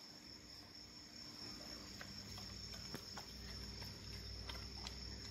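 Crickets chirping steadily in a faint high-pitched drone, with scattered faint clicks and a low rumble that comes up after about a second and a half.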